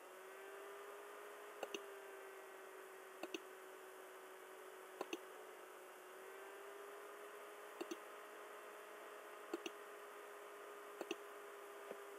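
Computer mouse button clicking about seven times, a second or two apart, most clicks heard as a quick press-and-release pair, over a faint steady hum.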